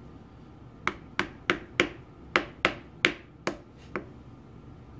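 Light tapping with a wooden tool on the Linotype knife block's metal extension arm, driving the snug-fitting part into its seat. About nine sharp taps, a few per second, starting about a second in and stopping near four seconds.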